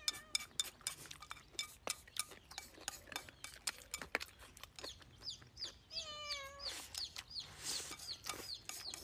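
Close-up eating sounds: wooden chopsticks clicking against a ceramic bowl, and the mouth sounds of eating rice. Behind them a chicken clucks, with one drawn-out call about six seconds in, and birds chirp repeatedly in the second half.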